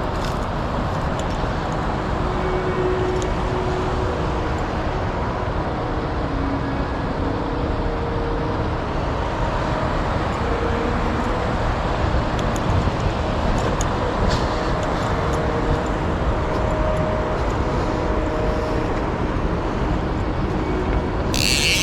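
Mountain stream water rushing steadily. A brief high-pitched sound comes near the end.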